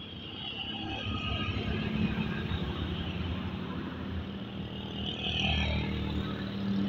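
Road traffic passing: motorcycles and a small van driving by with their engines running, growing louder as they come closer.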